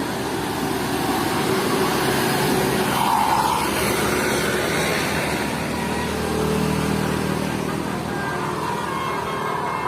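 Large road vehicle, most likely a bus, driving past: engine and tyre noise swells to its loudest about three seconds in, then eases off.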